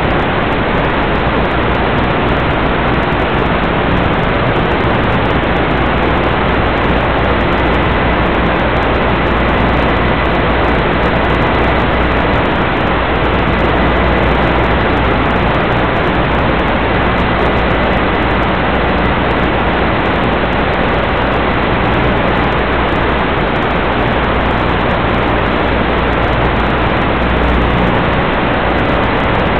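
Steady loud hiss of static from the FPV video receiver's audio channel, recorded straight from the goggles, with a faint steady thin tone running through it.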